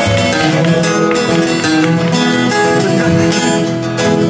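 Two acoustic guitars strumming and picking an instrumental passage between sung verses of a live folk-country song.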